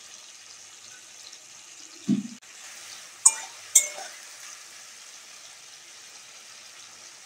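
Ridge gourd pieces sizzling gently in oil in a wok as a metal spatula stirs them. A dull knock about two seconds in, then two sharp clinks of the spatula against the pan about half a second apart.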